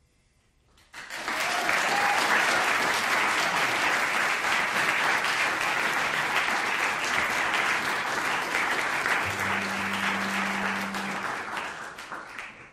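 Audience applauding, starting suddenly about a second in after near silence and thinning out near the end.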